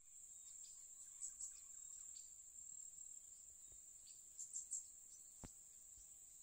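Faint, steady high-pitched trill of an insect chorus, with a few short chirps about a second in and again after four seconds, and a single click about five and a half seconds in.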